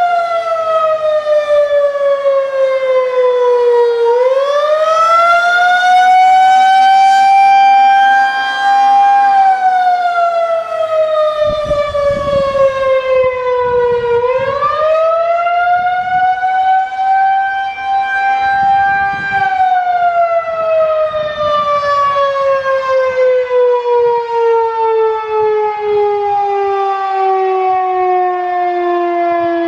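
Federal Signal 2001-130 rotating outdoor warning siren sounding the attack signal: a single-tone wail that falls, rises and holds in slow cycles of about ten seconds. In the last third the pitch slides down in one long, slow fall.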